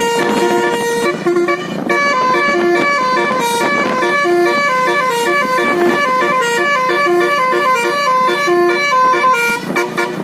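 Telolet Basuri musical bus horn playing a quick melody. Several horn tones sound at once and step from note to note every fraction of a second, with a few short breaks near the end.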